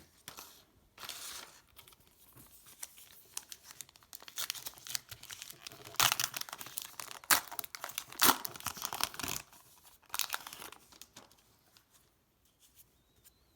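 Wrapper of a football trading-card pack being torn open and crinkled, in irregular rustling bursts with a few sharp crackles, dying away over the last couple of seconds.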